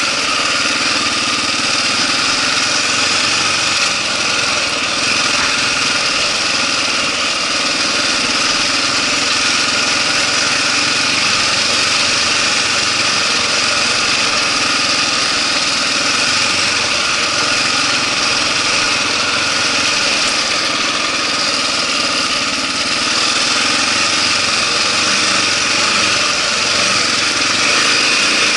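Kawasaki KLR650's single-cylinder four-stroke engine running steadily as the motorcycle rides along a rocky dirt track, under an even high hiss, heard from a camera mounted on the bike.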